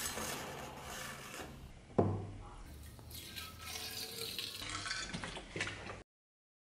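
Rust remover liquid poured from a plastic jug into a metal pipe clamped in a vise, a rushing pour heard over a few seconds, after a single sharp knock about two seconds in.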